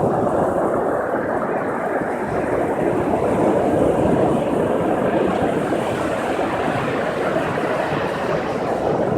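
Steady rush of ocean surf and wind, a constant, even wash of noise with no single event standing out.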